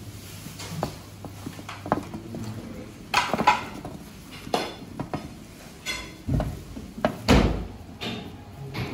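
Flat metal spatula spreading melted butter over phyllo sheets in a round metal baklava tray, scraping and clacking against the pastry and tray. Several sharp clacks come a few seconds in, followed by two heavier dull thumps near the end.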